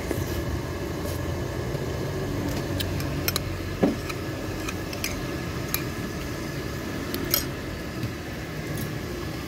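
A metal spoon clinking lightly and briefly against a ceramic soup bowl and plate, about half a dozen times, over a steady low background rumble.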